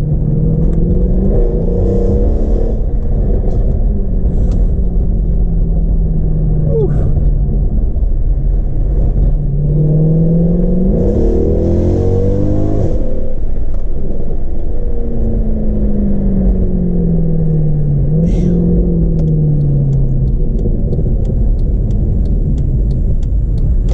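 Mercedes-AMG C63 with its secondary catalytic converters and resonators deleted, driving under a deep exhaust rumble. The revs rise and ease several times; about ten seconds in there is a hard pull with the pitch climbing steeply for about three seconds, then it drops off and falls slowly as the car eases off.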